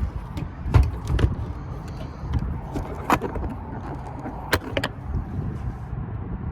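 A few sharp knocks and clicks over a steady low rumble.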